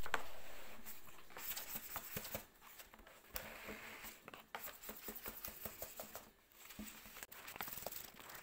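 A loud noise fading away over the first two seconds, then irregular light clicks, taps and rustling of small things being handled.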